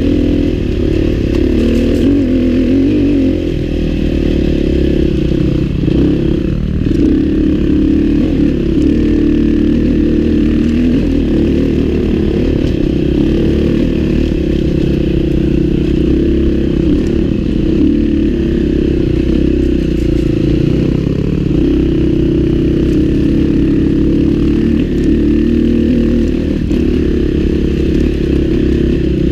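Husqvarna four-stroke single-cylinder dirt bike engine running loud and steady under way on a dirt trail, its pitch rising and falling with small throttle changes, with a couple of brief easings-off. It is heard close up from the bike itself.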